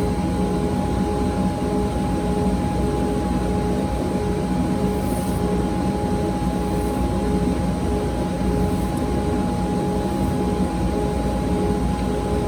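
An electric sharpening or grinding machine running steadily, with a constant hum and whir.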